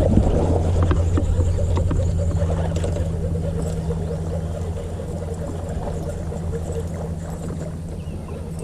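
Boat motor running with a steady low hum, gradually getting quieter.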